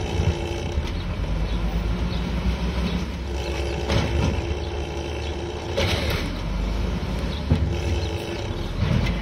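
Old Peterbilt 310 garbage truck with an Amrep automated side-loader body, its diesel engine running steadily under a constant whine, with sharp clanks and knocks from the loader about 4, 6, 7.5 and 9 seconds in.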